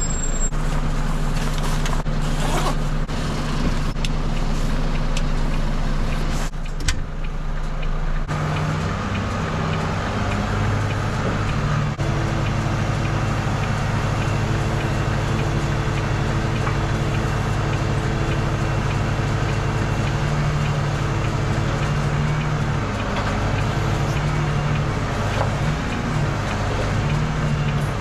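Truck diesel engine running steadily while it drives the Hiab loader crane's hydraulics, with a few knocks early on. About eight seconds in the engine note changes and takes on load, then holds steady with some wavering as the crane works.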